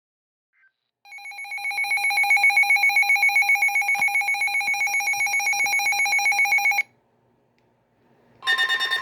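Electronic alert tone from a weather alert radio, a fast-pulsing, high-pitched beeping. It starts about a second in and cuts off suddenly after about six seconds, and another loud alert tone begins near the end.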